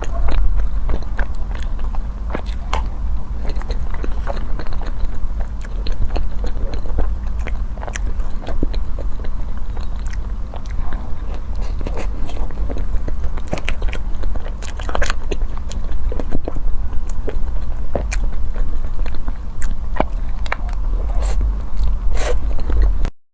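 Close-miked mouth sounds of someone biting and chewing food: many small sharp clicks and crackles over a steady low hum. The sound cuts off suddenly near the end.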